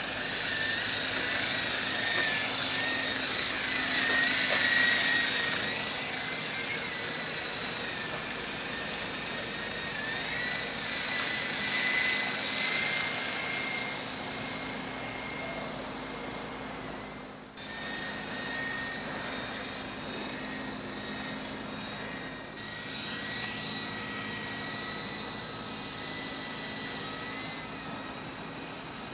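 Silverlit toy radio-controlled helicopter in flight: the small electric motor's whine and the rotor's whir, a wavering high tone that swells and fades as the helicopter moves about. The sound drops out abruptly twice, past the middle.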